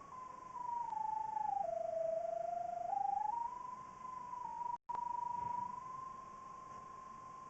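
Electronic tone from a sewer-camera sonde locator receiver, stepping down in pitch and back up as the signal strength changes while it is swept over the buried camera head, then holding steady. The sound cuts out for an instant about five seconds in.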